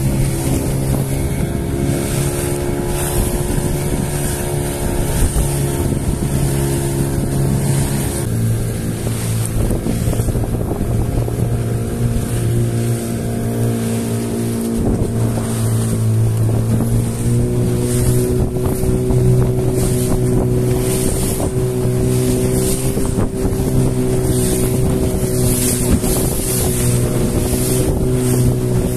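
Small fishing boat's engine running steadily under way, its note shifting in pitch a couple of times, with wind rushing over the microphone and water hissing past the hull.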